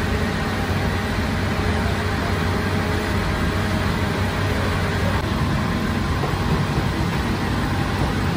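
Steady machine drone of bakery equipment: a constant low hum with a broad rushing noise over it, unchanging throughout.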